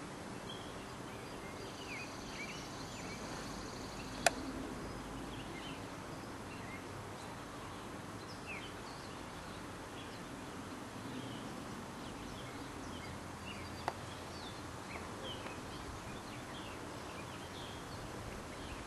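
Outdoor ambience: a steady low background hiss with small birds chirping here and there. A sharp click sounds about four seconds in and a fainter one around fourteen seconds.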